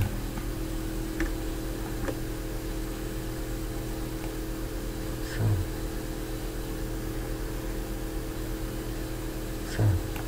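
Steady electrical hum and hiss of the recording room tone, with a few faint clicks and two soft low bumps, one about halfway through and one near the end.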